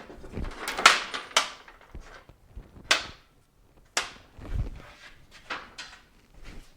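A garage door being shut by hand: a clatter of knocks in the first second or so, two sharp cracks about a second apart, and a low thud after the second.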